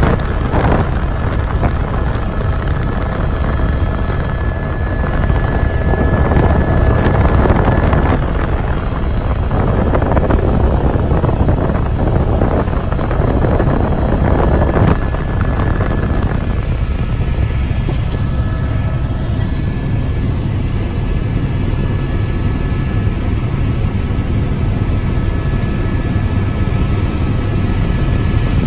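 Helicopter rotor and turbine heard from inside the cabin: a steady, loud low thrum with faint steady whines above it. It grows louder and rougher for several seconds in the middle.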